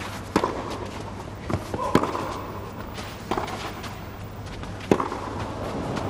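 Tennis rally on a clay court: rackets striking the ball back and forth, a sharp pock about every second and a half.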